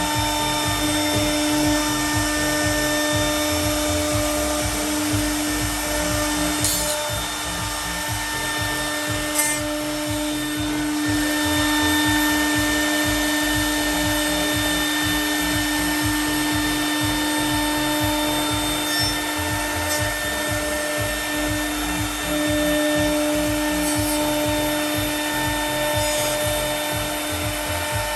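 CNC router spindle running with a steady high whine as its cutter mills aluminium composite panel, with a few short ticks along the way.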